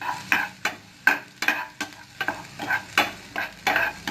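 A utensil stirring and scraping browned onions and green chilies around a hot oiled frying pan, about three strokes a second, with the food sizzling in the oil.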